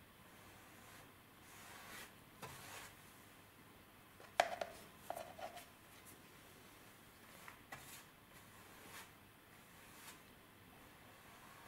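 Faint strokes of a paintbrush laying car paint onto a steel car door panel. Near the middle come a sharp tap with a brief ring and a few lighter clicks as the brush meets the plastic mixing cup.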